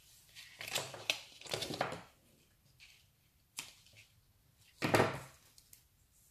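Hands working black cardstock and double-sided tape: short papery rustles and scrapes as the tape's backing strip is worked off and the card is handled. Then a light click, and a single louder knock about five seconds in.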